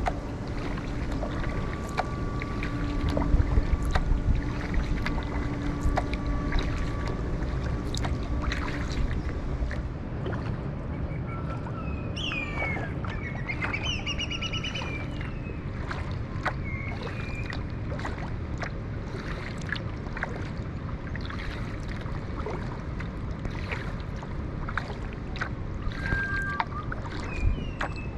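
Kayak on a river: steady water noise with irregular small splashes and knocks from the paddle and hull. A faint steady hum is heard in the first third, and birds chirp in the middle and again near the end.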